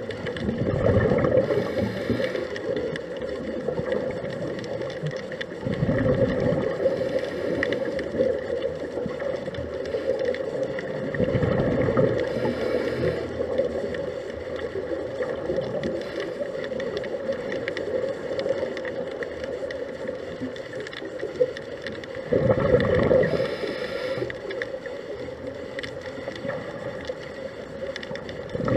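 Scuba regulator exhalations heard underwater: a gush of bubbles about every five seconds, with one longer gap, over a steady low drone.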